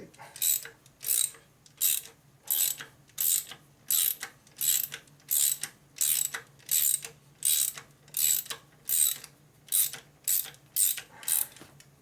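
Hand ratchet wrench working a tight bolt loose: a long run of even ratcheting strokes, about one and a half a second, that stops shortly before the end.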